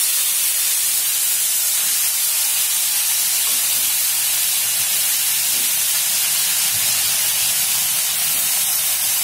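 Cut vegetables and small fish frying in hot oil in a wok, a steady sizzling hiss as the mixture is tipped in and settles in the pan.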